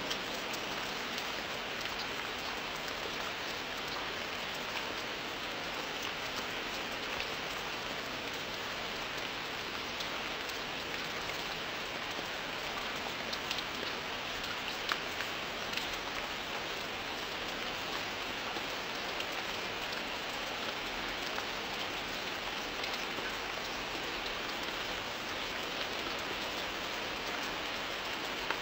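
Rain falling steadily, an even hiss with scattered sharper ticks of single drops.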